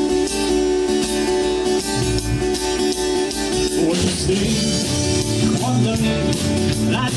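Rock music: guitar chords over a drum kit beat, with the bass line changing about four seconds in.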